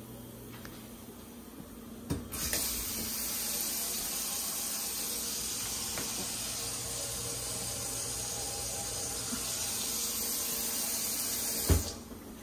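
Kitchen faucet running water steadily into a stainless steel sink, turned on with a click about two seconds in and shut off near the end with a sharp knock.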